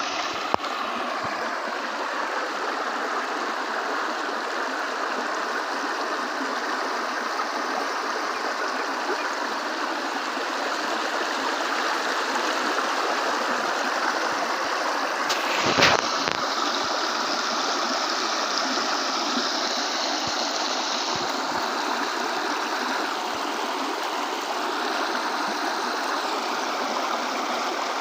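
Steady rush of a flowing river or stream, with one brief thump a little past halfway.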